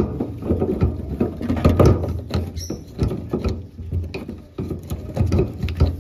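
Irregular clicking, tapping and rustling of parts and tools being handled during hands-on work on a car, with occasional low thuds.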